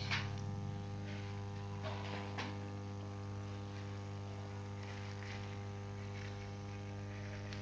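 Steady electrical mains hum with faint, soft swishes now and then from an eraser wiping a whiteboard.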